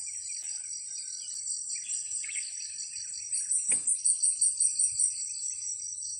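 Steady high-pitched chorus of insects, crickets or cicadas, with chirping bird calls below it. About halfway through, a louder pulsing insect call of roughly five or six beats a second joins for about two seconds, and one short sharp knock falls in the middle of it.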